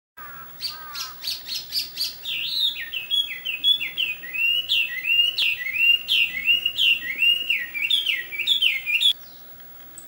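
Chinese hwamei (melodious laughingthrush) singing loudly. It opens with a quick run of high notes, then repeats sweeping phrases about two a second, and breaks off abruptly near the end.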